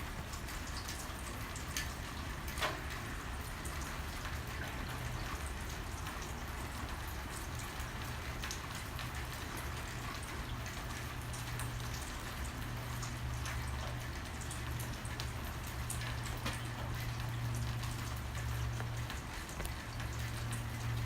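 Steady rain hiss with scattered single drops ticking close by, picked up by an iPhone 7 Plus back-camera microphone with phone noise cancelling off. A steady low hum runs underneath.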